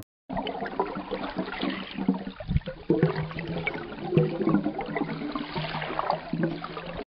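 Water bubbling and gurgling in an underwater ambience, an irregular stream of small gurgles and pops that cuts off abruptly near the end.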